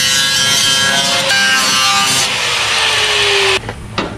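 Angle grinder with a thin cut-off wheel slicing through a rusty steel car floor pan: a loud, steady shriek of the wheel on sheet metal, with the motor's whine slowly dropping in pitch, until it stops suddenly about three and a half seconds in. A sharp knock follows near the end.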